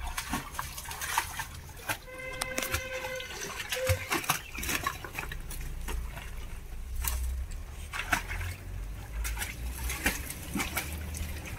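Scattered knocks and clatter from a wooden ladder being shifted against the ditch bank, with light splashing of muddy water around a trapped dog. A brief high whine about two seconds in.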